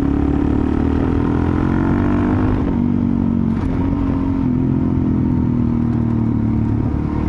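Suzuki DR-Z400SM supermoto's single-cylinder four-stroke engine running under way on a dirt road; its pitch eases down a little around three seconds in as the throttle is rolled back, then holds steady.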